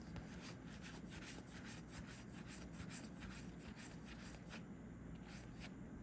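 Faint rubbing and small irregular ticks of trading cards sliding against each other as a booster pack's cards are flipped through by hand.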